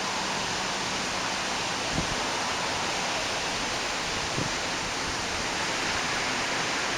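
Steady rain falling during a thunderstorm: an even hiss, with a couple of soft taps.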